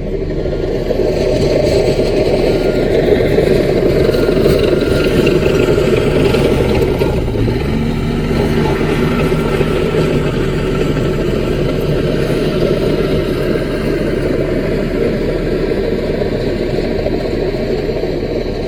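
Small CAT bulldozer's diesel engine running under work. Its note changes about halfway through, and a steadier low hum comes through from then on.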